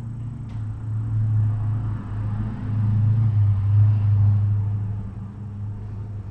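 Cat purring close to the microphone: a deep, steady rumble that swells louder in the middle and eases off again.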